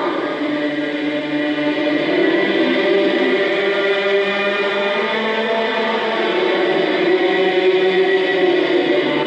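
A congregation singing a Gaelic psalm unaccompanied in slow, drawn-out unison, with many voices holding long notes that glide slowly from one pitch to the next.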